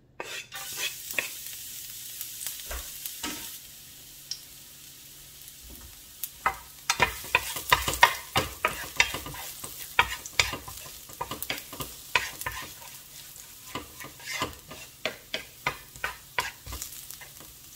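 Minced garlic sizzling in hot cooking oil in a frying pan. A wooden spatula stirs and knocks against the pan many times, more often in the second half.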